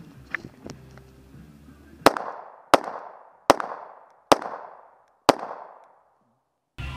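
Five pistol shots fired in quick succession, the gaps widening slightly from about two-thirds of a second to a second, each followed by a fading echo.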